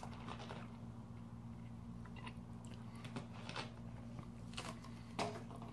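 Soft mouth noises, scattered lip smacks and tongue clicks, a few times over the pause, the loudest a little after five seconds in, over a low steady hum.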